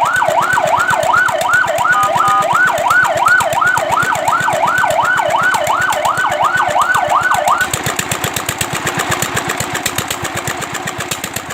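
Fire truck siren in a fast yelp, sweeping up and down about three times a second over a running engine. The siren cuts off suddenly about two-thirds of the way through, leaving the engine running and fading away.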